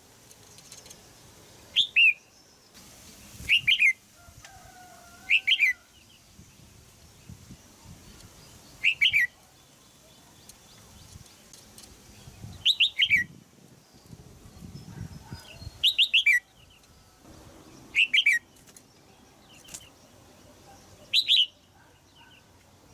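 Female red-whiskered bulbul giving short, sharp chattering calls, each a quick run of two or three notes sliding downward, repeated about eight times at intervals of two to four seconds. This call is used to prompt young males to sing.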